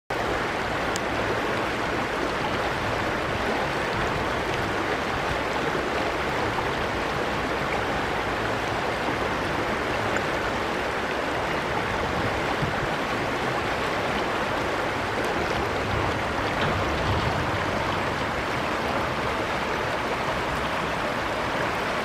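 Flowing water in a shallow stream: a steady, even rush.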